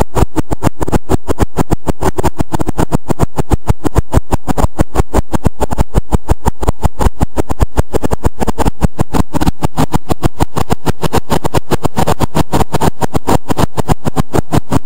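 McCormick tractor's diesel engine and mower running under load, heard loud inside the cab with a rapid, even pulsing.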